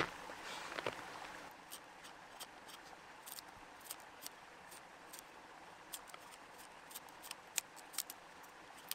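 Steel knife blade carving shavings off a wooden bow-drill spindle: faint, irregular sharp cuts and scrapes, about one or two a second, that thicken after the first second or so.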